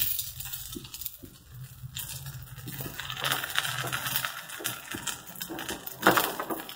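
Batter rounds sizzling and crackling on a hot flat tawa over a gas flame, a busy patter of small crackles as the batter cooks and bubbles. A sharper clatter sounds about six seconds in.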